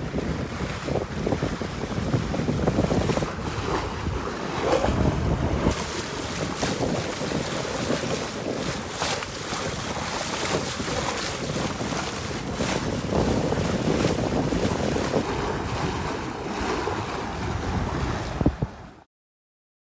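Wind buffeting the microphone over water rushing and splashing along the hull of a J/24 sailboat under way. The sound cuts off suddenly near the end.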